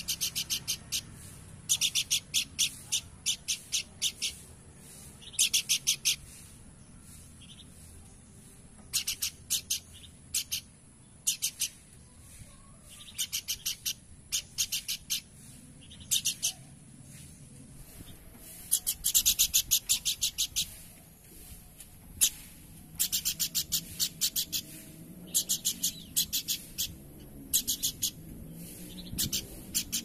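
Horsfield's babbler (pelanduk semak) calling in repeated short bursts of rapid, high chattering notes, each burst under a second, with brief pauses between. There is a longer, denser run partway through.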